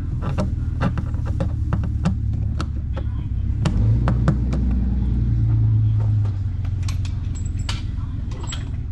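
Irregular sharp clicks and taps, like small hard parts being handled, over a steady low hum and rumble.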